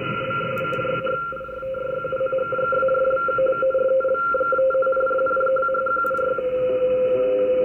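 Audio from an SDRplay RSP2 software-defined radio receiver tuned low in the longwave band: steady whistling tones over receiver hiss. From about a second in the tones break up into rapid chopping, and near the end they settle into one steady lower tone.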